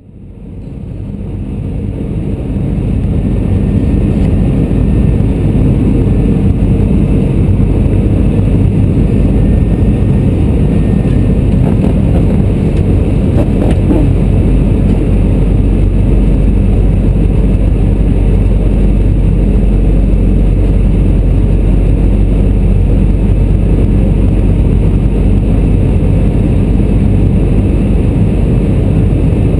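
Steady low rumble of an Airbus A320's CFM56 engines and airflow, heard from inside the aircraft on approach; it fades in over the first few seconds.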